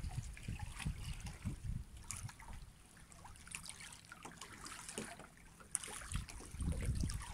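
Faint sea water lapping and trickling among shoreline rocks. A low wind rumble on the microphone grows stronger near the end.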